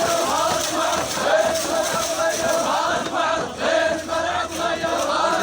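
A crowd of men chanting together, many overlapping voices, as in an Iraqi tribal ʿarada.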